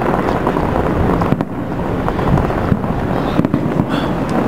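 Fireworks going off in a dense, continuous run of pops and crackles, with a few sharper cracks, the clearest about a second and a half in and again near the end.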